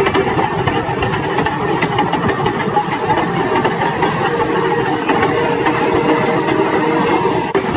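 An engine running steadily, with a dense, rapid rattling texture.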